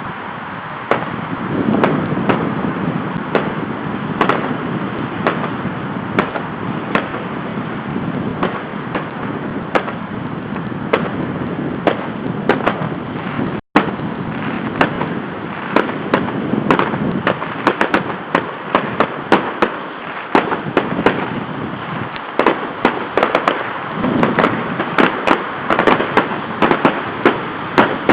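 Fireworks salute going off repeatedly: many sharp pops and bangs, coming thicker toward the end, over a steady background rumble of noise.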